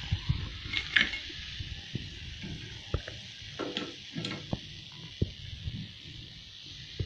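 Hot oil sizzling steadily as a chana dal vada deep-fries in a pan, with scattered light clicks and taps of the metal skimmer and pan.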